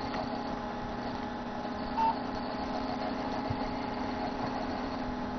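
Desktop computer's CPU cooling fan running just after power-on, a steady, horrible-sounding drone as its blades hit a wire. About two seconds in, a single short beep from the motherboard's power-on self-test.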